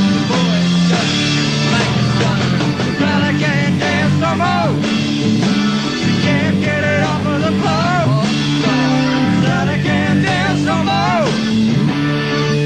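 A rock band playing live: an electric guitar lead with bent, wavering notes over steady bass and drums.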